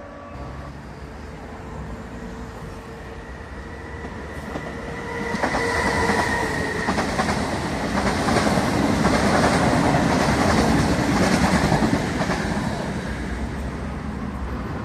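A passenger train's coaches pass close by. A steady whine and rumble as it approaches give way, about five seconds in, to loud wheel noise with rhythmic clicking over the rail joints, which fades as the train goes by.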